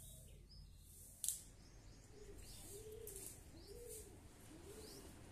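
A dove cooing in a steady run of rising-and-falling coos, about one a second, with small birds chirping faintly. There is one sharp click about a second in.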